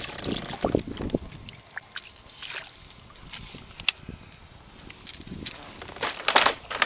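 Water splashing and dripping as a small fish is scooped into a landing net beside a kayak, followed by scattered light knocks and clicks, with a cluster of sharp ticks near the end.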